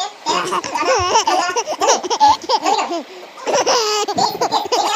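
Children laughing in high-pitched bouts, with a short break about three seconds in.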